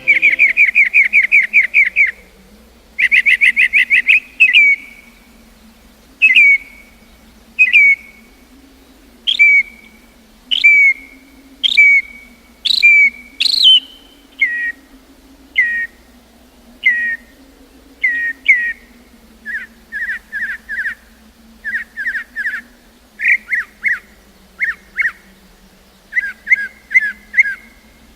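A songbird singing loudly and close: a fast run of repeated whistled notes opens the song, followed by single down-slurred whistles about once every second or so, then quick clusters of two to four notes toward the end.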